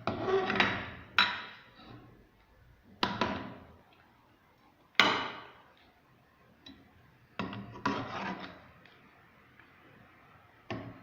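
Kitchen handling noises: a run of sharp knocks and clatters, each trailing off in a short scraping rattle, as cookware is moved around during the chickpea preparation.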